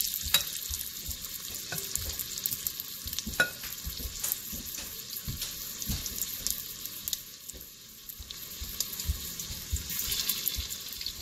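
Raw ground-beef meatballs sizzling as they brown in the hot, spray-coated stainless inner pot of an Instant Pot on its sauté setting, with scattered crackles. The sizzle gets louder near the end as another meatball is pressed into the pot.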